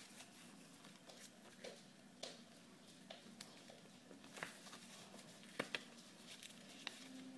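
Faint rustling and soft taps of sheets of paper being folded and pressed flat by hand, with a few sharper clicks in the second half.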